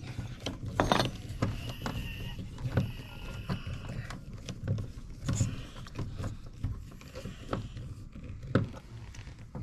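A screw being turned into the door frame to mount the screen door closer bracket: scattered small clicks, creaks and knocks of the tool on the screw head and bracket.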